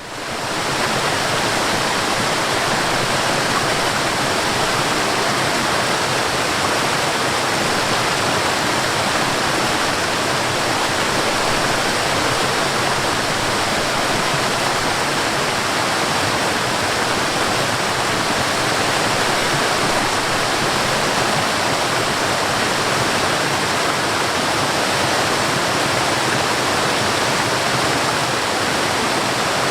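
Water pouring over a small waterfall and running in a stream, a steady, even rush that fades in within the first second.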